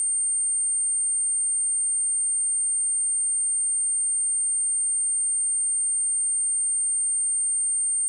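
A pure 8735 Hz sine-wave test tone: one steady, unbroken high-pitched electronic tone.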